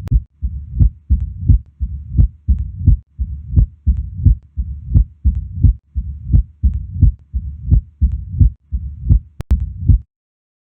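Recorded heart sounds heard through a stethoscope, beating regularly at about 85 beats a minute, with a murmur sounding between the beats. A sharp click comes just before the recording cuts off abruptly near the end.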